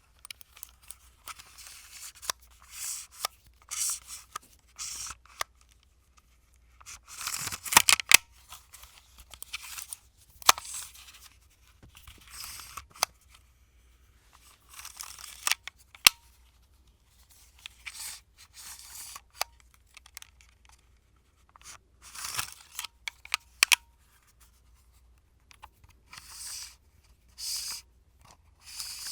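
Retractable USB cable on a spring-loaded pulley, pulled out and reeled back in again and again: short zipping rushes of the cord sliding through its housing, many of them ending in a sharp click.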